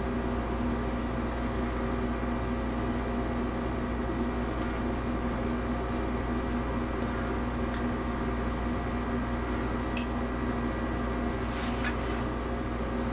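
Steady machine hum holding several fixed tones. Over it, faint brief scratches from a comb drawn through pomaded hair, with two slightly louder ones near the end.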